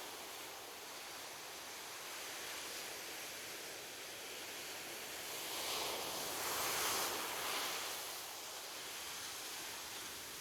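Ocean waves washing on a beach: a steady hiss of surf with one wave swelling up and breaking about halfway through, then drawing back.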